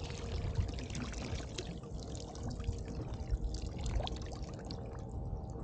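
Seawater pouring and trickling off a waterlogged wooden guitar as it is lifted out of the sea, over a low rumble.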